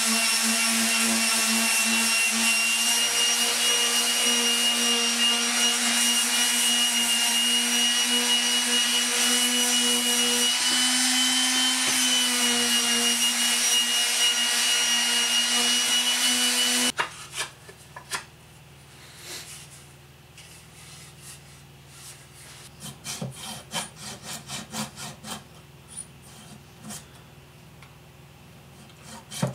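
Electric palm sander running steadily on a wooden axe handle: a constant hum with a high whine, the pad scrubbing the wood. It cuts off suddenly about 17 seconds in, leaving faint scattered clicks and knocks.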